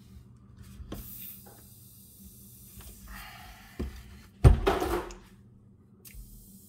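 Work noises from pliers on a riding-mower lift lever: a few light clicks and a short scrape, then one loud clunk with a brief rattle about four and a half seconds in.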